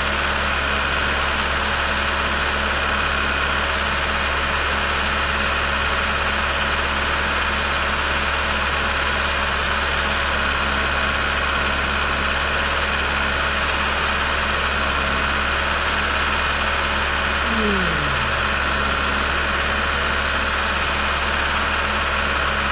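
Kia Cerato 2's petrol engine idling steadily during an injector flush, running on cleaning fluid fed into its fuel rail.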